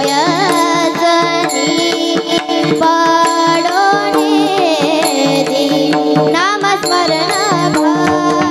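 Girls' voices singing a Marathi kirtan tune with ornamented, sliding melody over a steady sustained accompaniment.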